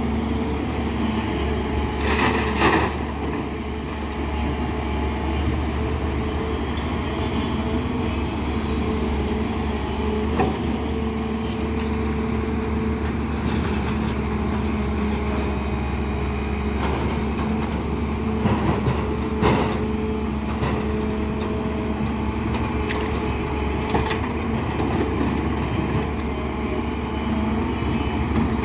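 JCB 205 tracked excavator's diesel engine running steadily under load while the machine digs earth and swings its bucket, with a humming tone that comes and goes as the hydraulics work. Several sharp knocks and clatters of the bucket and soil cut through, the loudest about two seconds in and again about twenty seconds in.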